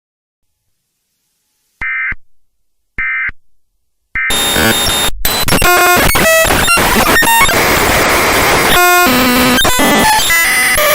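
Silence, then two short electronic beeps about a second apart, then a loud burst of distorted electronic noise with many clashing tones and glitchy stutters, a scare sound effect.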